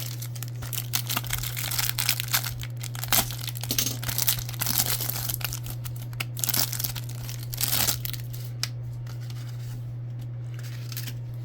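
A trading-card pack wrapper being torn open and crinkled in a run of crackling rips lasting several seconds, thinning out near the end, over a steady low hum.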